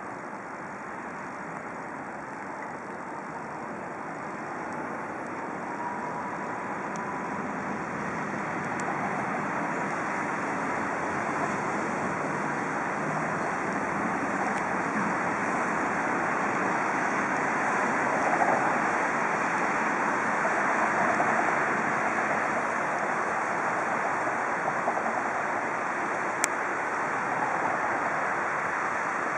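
Steady rushing wind noise on the microphone, growing gradually louder, with a couple of faint clicks.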